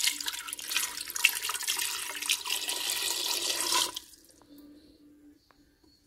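Water poured from a jug into a Cookeo multicooker's non-stick inner bowl over eggs, splashing steadily for about four seconds and then stopping abruptly: the bowl being filled before pressure-cooking.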